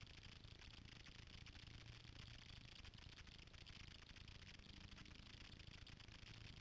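Near silence: a faint steady low hum under hiss, with a faint engine tone starting to rise near the end.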